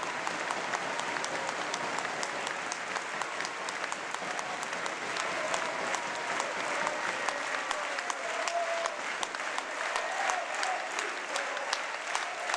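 A large crowd applauding, a dense patter of many hands clapping, with some voices calling out within it.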